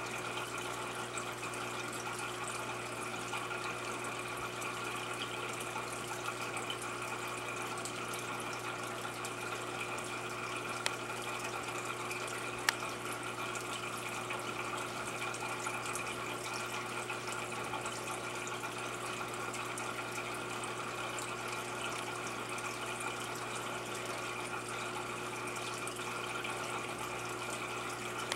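Aquarium filtration running steadily: water trickling and splashing continuously over a constant low pump hum, with two faint ticks around the middle.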